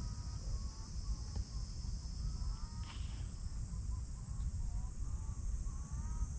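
Steady drone of summer insects, with a low rumble underneath and faint short chirping calls scattered through.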